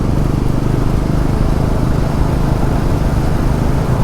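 Motorcycle engine running steadily while riding, with a low, even hum.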